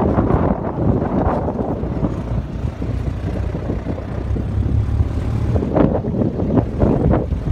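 Off-road vehicle driving over sand dunes, its engine and tyres heard under wind buffeting the microphone in irregular gusts.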